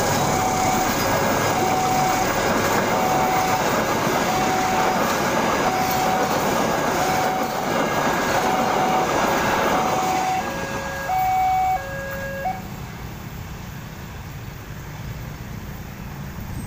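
A long train of passenger carriages rushing past close by: a loud rolling rush of wheel and track noise that drops away about ten seconds in as the last car passes and the train pulls away. A short electronic beep repeats about every 0.7 s over it, and it changes to two alternating notes near the end.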